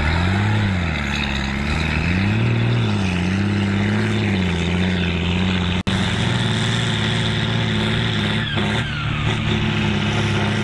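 John Deere 4240's six-cylinder diesel engine working hard under heavy load while pulling a four-furrow plough at speed. The engine note sags and recovers twice in the first few seconds, then holds steady, with a brief break near the middle.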